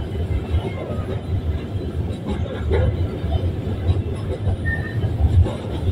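Hopper wagons of a Babaranjang coal train rolling past close by: a continuous low rumble with irregular wheel-on-rail clatter.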